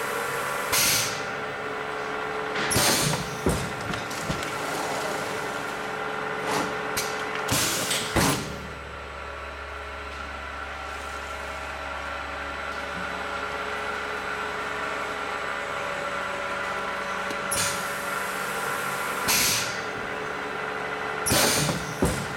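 Automatic tray sealer running: a steady machine hum broken by several short hisses of air released as the sealing station cycles.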